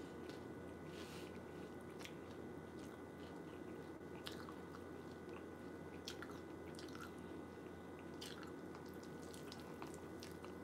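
A person chewing a mouthful of Trix cereal soaked in wine: faint crunching, with a few light, short clicks spread through, over a steady low hum.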